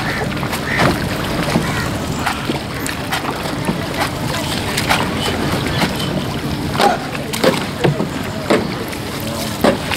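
Irregular sharp slaps, roughly one every second, of wet laundry beaten against the stone steps by washermen at the river's edge, over a steady wash of water and wind noise.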